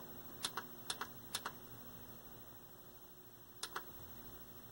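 Push buttons on a Channel Master set-top box clicking as they are pressed: three quick press-and-release clicks in the first second and a half, and one more near the end, over a faint steady hum.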